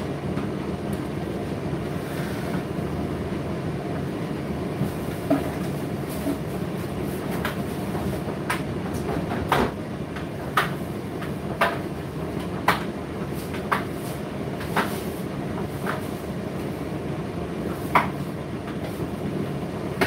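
Indesit IDC8T3 condenser tumble dryer running, with a steady low hum from its motor and turning drum. From about five seconds in there is a light knock roughly once a second as the load tumbles in the drum.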